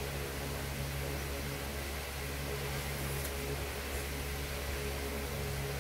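Steady hiss with a low electrical hum. A person chewing apple slices adds two faint crunchy clicks about three and four seconds in.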